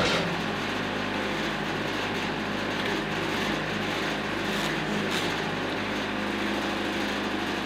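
Wood-Mizer portable band sawmill running, its Yanmar diesel engine holding a steady hum with an even mechanical noise over it.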